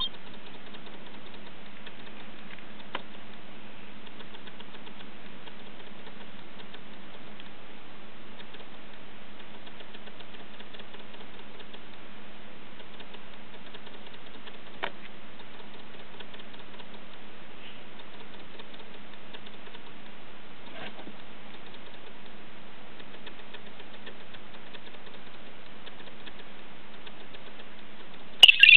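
Steady recording hiss with a low hum and a few faint taps, then near the end a short, loud electronic beep from the iPhone 4's speaker.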